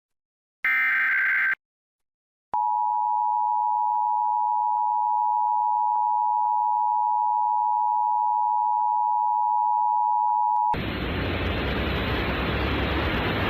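Emergency Alert System SAME header data burst, a harsh warbling screech lasting about a second. After a brief pause comes the EAS two-tone attention signal, held steady for about eight seconds. It cuts off abruptly into a steady hiss.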